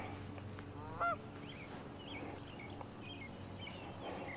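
A single short bird call about a second in, followed by faint chirping of small birds over a faint steady hum.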